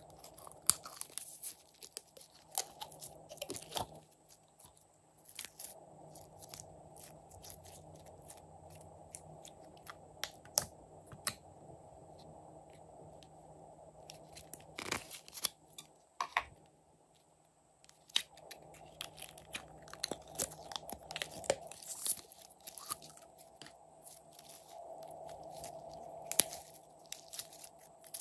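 Clear jelly slime being squeezed out of soft plastic toy bottles and handled, with irregular sticky clicks, pops and crackles.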